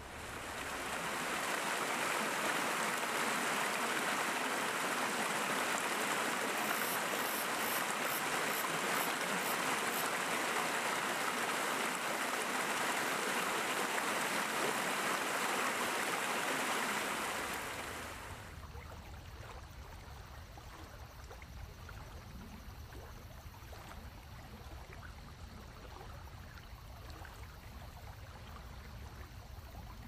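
Running water of a stream, a steady rushing sound that fades to a much quieter background with a low rumble about eighteen seconds in.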